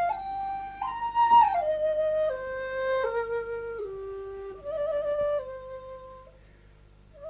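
Background music: a slow solo flute melody of held notes that steps mostly downward, breaking off for under a second near the end before starting again.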